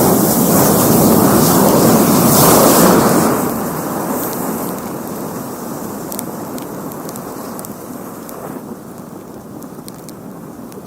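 A large mass of matches burning: a loud, dense hiss of match heads flaring that dies down after about three seconds into a quieter crackle with scattered sharp pops.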